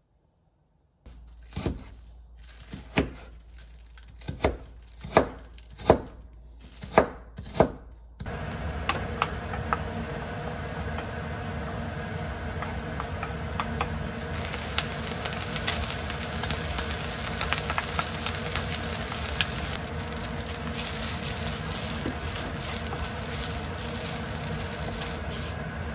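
A knife chopping green onions on a cutting board, about nine slow, separate strokes. Then, from about eight seconds in, green onions and shredded imitation crab sizzling steadily in oil in a frying pan, with light ticks of a wooden spoon stirring against the pan.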